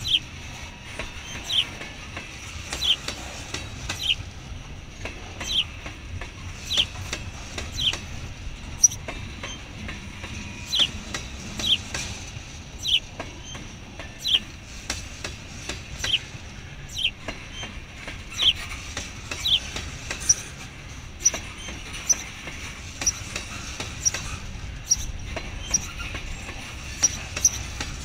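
Loaded freight train of tank cars rolling past steadily, with a low rumble and wheels clicking over rail joints. Short, high, falling squeaks come through about once a second, and shorter, higher ones come in near the end.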